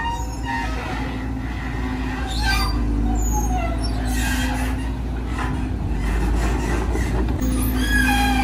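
Volvo EC210DL long-reach excavator running steadily, its diesel engine and hydraulics making a constant low drone with a steady hum, while the machine swings its boom.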